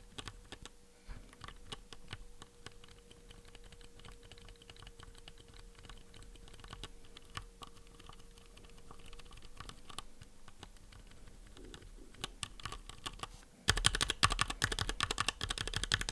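Stock Everglide Jade tactile keyboard switches pressed partway down and up, giving faint scratchy leaf noise from the switch's tactile leaf. About fourteen seconds in come loud, rapid full keypresses.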